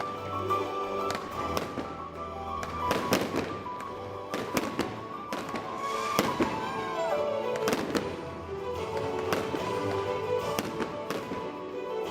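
Fireworks display: aerial shots going off in a string of sharp bangs, roughly one every second or two, over steady music.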